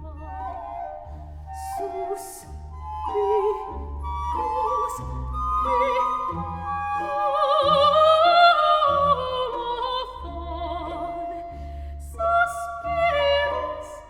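Background music: operatic singing with vibrato over a steady low beat.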